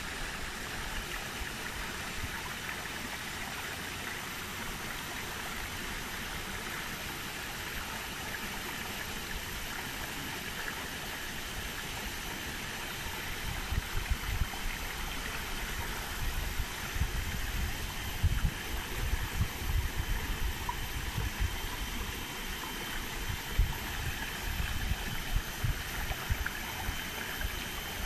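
Steady rushing of running water. From about halfway, irregular low bumps buffet the microphone.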